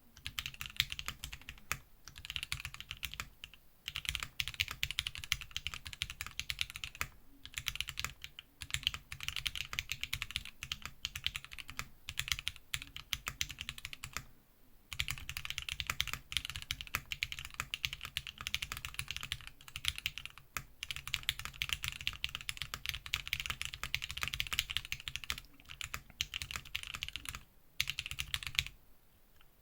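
Fast, continuous typing on a TheKeyCompany Portico mechanical keyboard with lubed Zeal Tealios V2 linear switches: a dense run of keystrokes broken by a few short pauses.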